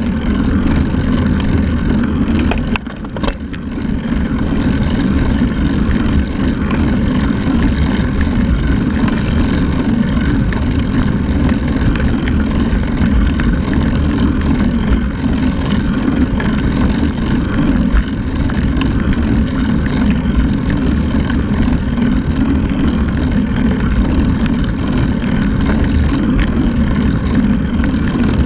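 Loud, steady wind rush buffeting the microphone of a handlebar-mounted camera on a moving road bike, mixed with the rumble of riding on asphalt. The noise dips briefly about three seconds in.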